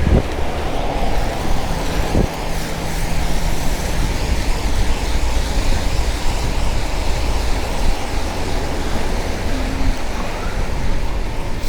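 Steady rumble and road noise of a moving vehicle, an even wash of sound with no distinct events.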